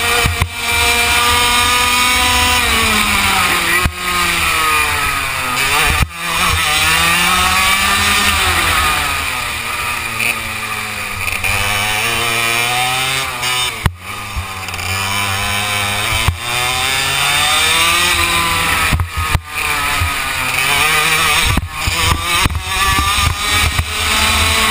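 Kart engine heard from on board, its pitch climbing as it revs out and dropping as it slows for corners, several times over, with a few brief knocks.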